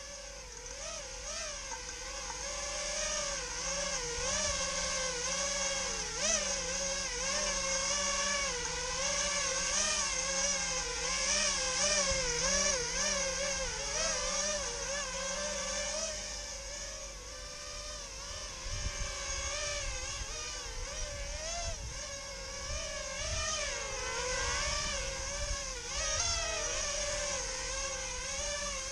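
Small brushless motors of an FPV quadcopter whose flight controller is hard-mounted, running with a steady whine whose pitch wavers rapidly up and down, over a constant high hiss.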